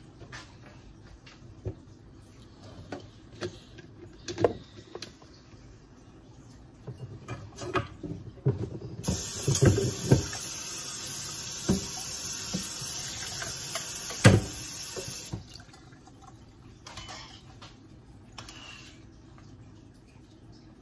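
Water running steadily for about six seconds in the middle, then cutting off suddenly. Scattered knocks and clinks of kitchen utensils against a pot and cutting board come before, during and after it.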